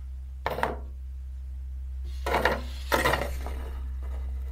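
Three short handling rustles and light knocks, about half a second, two and a quarter and three seconds in, over a steady low hum.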